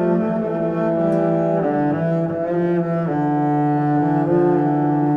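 Background music of slow, held notes on low bowed strings, changing pitch every second or so.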